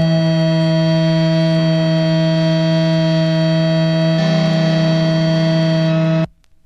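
A distorted electric guitar chord held and ringing out with feedback at the end of a hardcore punk song. Its tones shift twice, then it cuts off abruptly near the end.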